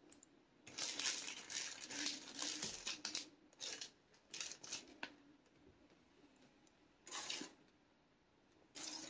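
Plastic packaging bags crinkling and rustling as a hand handles them: a long stretch in the first three seconds, then short bursts about four and a half, seven and nine seconds in.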